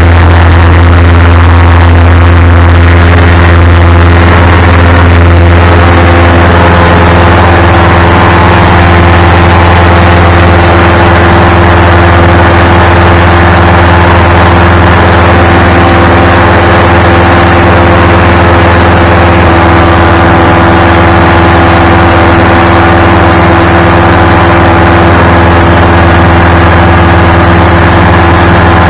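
Paramotor engine running loudly at high power during takeoff and climb, a steady drone that settles after a few seconds.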